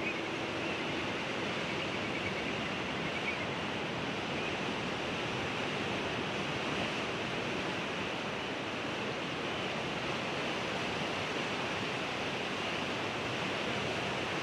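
Steady rush of ocean surf, an even wash of water noise with no distinct single wave breaks standing out.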